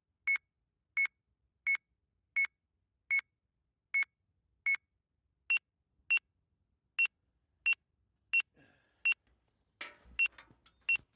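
Point-to-point radio link's antenna-alignment tone: short beeps about every 0.7 s. About five seconds in, the pitch steps up and the beeps come a little faster as the dish is turned for a stronger signal. Faint rustling near the end.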